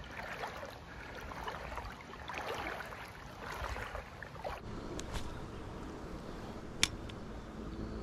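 Irregular sloshing and rustling of someone wading through a shallow river, changing to a steadier, quieter sound about halfway through, with a single sharp click near the end.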